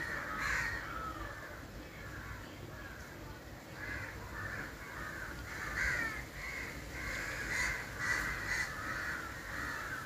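Crows cawing over and over, short harsh calls coming every half second to second, over the low steady rumble of a moving auto-rickshaw.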